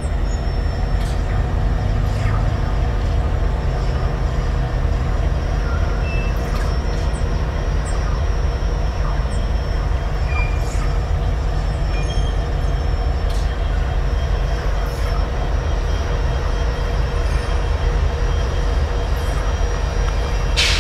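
Steady low rumble of a track renewal train working, with scattered sharp metallic pings and twangs from the new rails as they are stressed while being pulled, one about two seconds in. A sharp crack near the end.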